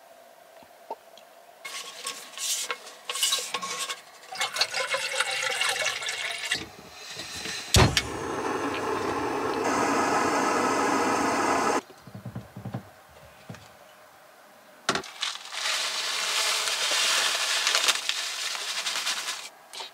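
Breakfast on a Jetboil camp stove. Water is poured into its cooking cup, then a sharp click about eight seconds in as the burner is lit, followed by the gas burner hissing steadily for a few seconds. Near the end comes a few seconds of steady pouring as a packet of oatmeal is tipped into the cup.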